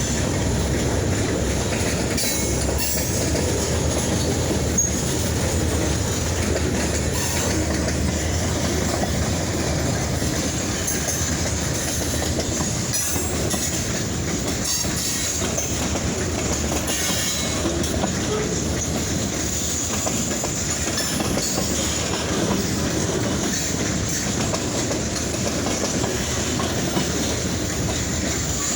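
A freight train rolling past, its wheels clicking over the rail joints in a steady rumble, with faint high wheel squeal coming and going.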